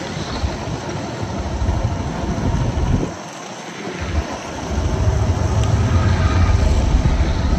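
Moving vehicle and road noise with wind buffeting the microphone: a heavy low rumble that eases briefly about three seconds in and comes back stronger from about five seconds.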